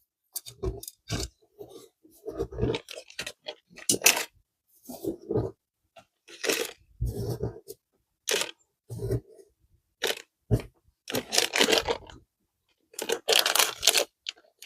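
Small metal screws being rummaged through and handled, in short irregular bursts of rattling and clinking with dead silence between them.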